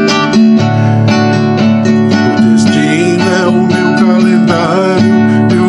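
Instrumental break of a Brazilian country song: a viola caipira is plucked and strummed with backing, and a wavering melody line plays over it in the middle.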